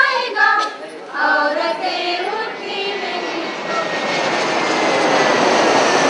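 Singing for the first two seconds or so, then a jet airliner passing overhead. Its engine noise swells to a peak near the end, with a faint high whine that slowly falls in pitch.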